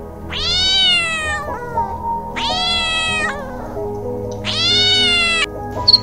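An animal calling three times, each a drawn-out call of about a second that rises at the start and sags slightly at the end, over background music.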